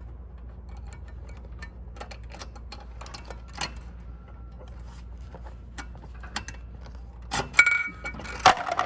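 Small metal brake-knob parts, a spring and nuts, clicking and clinking as they are handled and fitted into a spin bike's brake knob, with a few louder knocks near the end over a steady low hum.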